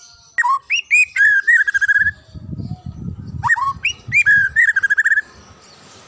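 White-rumped shama (murai batu) singing: two loud whistled phrases of sweeping rising and falling notes, each ending in a rapid trill. A low rumble sounds in the gap between them.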